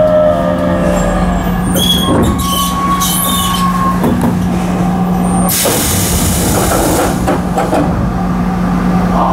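Chiba New Town Railway 9800-series electric train coming to a stop: its motor whine dies away, its equipment hums steadily, and a loud hiss of released air comes about five and a half seconds in.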